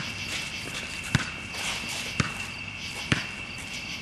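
A basketball being dribbled on a court: three sharp bounces about a second apart, with players' footsteps.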